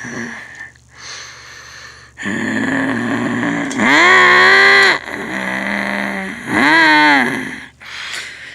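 Monster truck's supercharged engine revving hard twice, the pitch shooting up and holding high for about a second each time, with lower, unsteady running between the revs. The sound drops quieter for a moment soon after the start.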